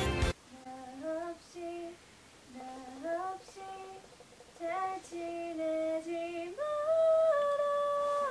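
A young woman's voice singing a slow melody alone, without accompaniment: short phrases with pauses between them, then longer held notes near the end.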